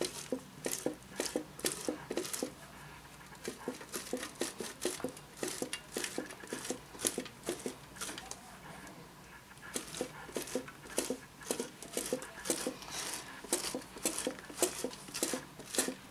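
Hard cheese grated by hand on a metal grater: rhythmic rasping strokes, about three a second, with a brief pause a little past the middle.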